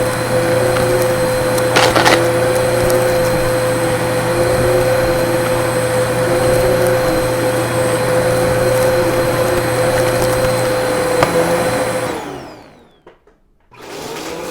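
Vacuum cleaner motor running steadily with a high whine, with a brief crackle about two seconds in. About twelve seconds in it is switched off and winds down with falling pitch to near silence, then a motor sound builds up again near the end.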